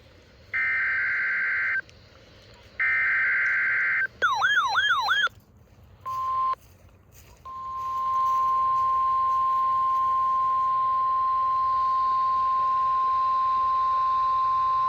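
NOAA Weather Radio alert tones for a Required Weekly Test. Two rasping SAME digital header bursts, each about a second long, are followed by a brief warbling sweep. Then comes the steady 1050 Hz alert tone: a short blip, then about seven seconds held unbroken.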